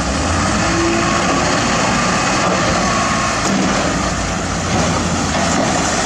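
Steady truck engine noise.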